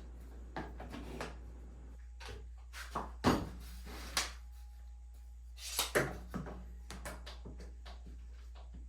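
Clamps being set and tightened on a wooden board on a workbench: scattered knocks and clicks of clamp and wood, the loudest a little past three seconds in and a cluster around six seconds. A steady low hum runs underneath.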